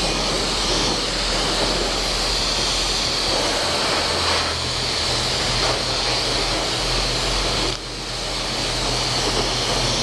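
Self-serve car wash high-pressure wand spraying water onto a dirt bike: a steady loud hiss of spray over a low steady hum. The spray drops out for a moment just before eight seconds in, then resumes.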